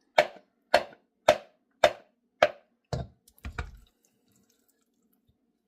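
Seven sharp knocks about two a second, the last a quick double, then stopping: a utensil tapped against a bowl's rim to shake thick pickle dip off into a container.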